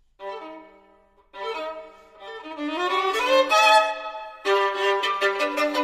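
Solo violin playing: two sharply attacked chords that ring and fade, a rising run of notes, then a loud passage of rapid short bow strokes near the end.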